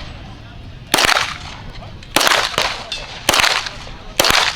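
Walther PDP pistol fired four times, about a second apart, each shot a sharp crack with a short echoing tail.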